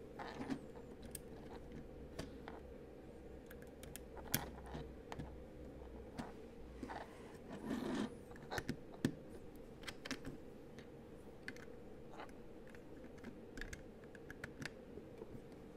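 Plastic LEGO bricks clicking and snapping as pieces are handled and pressed onto a model train tender car: irregular sharp clicks throughout, with a brief rustle about halfway through. A faint steady hum runs underneath.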